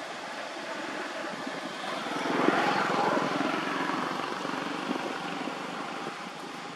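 A motor engine passes by: its steady drone swells about two seconds in and fades away over the next few seconds.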